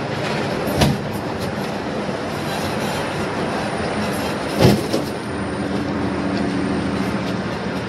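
Heavy vending machine rolling on dollies through a doorway: a steady rumble of the wheels, broken by two sharp knocks, about a second in and more loudly halfway through.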